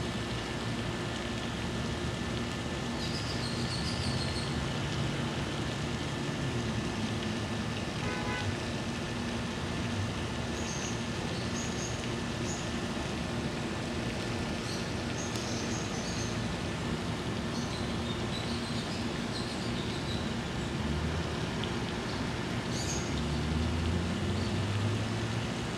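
Steady outdoor background rumble and hiss with a faint steady hum. Short high chirps come and go throughout, and a low rumble swells near the end.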